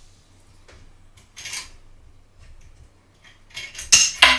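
Small plastic-and-metal clicks and a brief scraping rub as a part is handled and fitted at the top bar of a 3D printer's frame. Near the end a loud run of rapid, sharp hits starts.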